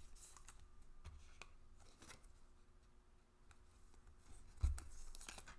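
Soft scraping and light rustling of a baseball card being slid into a plastic card sleeve, with faint clicks and a dull thump about four and a half seconds in.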